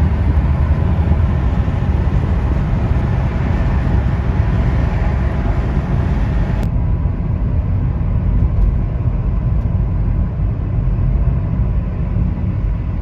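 Road noise inside a moving car's cabin: a steady low rumble with tyre hiss. About halfway through it changes abruptly to a similar rumble with less hiss.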